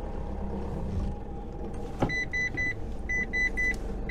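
Pickup truck's engine running steadily at low revs, heard from inside the cab. About two seconds in there is a click, followed by short runs of quick, high-pitched electronic reversing beeps, three or four at a time.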